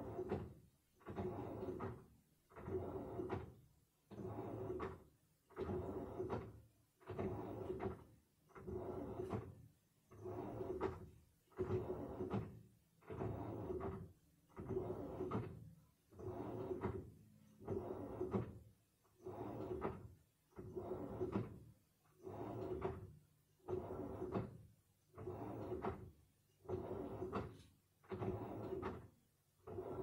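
Samsung front-loading washing machine in its wash cycle: the drum turns the wet laundry in short strokes just under once a second, each stroke a motor hum with water sloshing, with brief quiet gaps between strokes.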